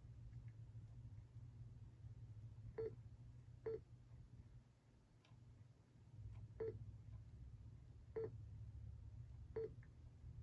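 RadioShack 12-996 weather radio's key-press beeps: five short single-pitched beeps at uneven gaps of about one to three seconds as its buttons are pressed to step through the alert-type settings, over a low steady hum.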